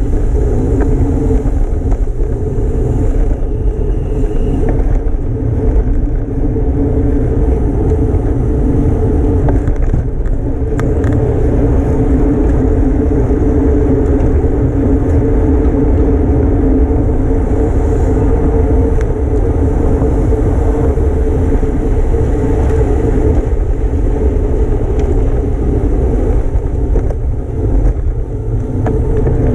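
Steady, loud wind rumble on the microphone of a camera riding on a racing bicycle at speed.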